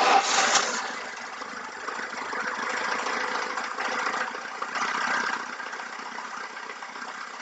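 VAZ 2107 carburettor engine starting from cold without choke. It catches at once and runs on steadily, with a couple of small swells in level. The knock is gone after the camshaft timing was corrected.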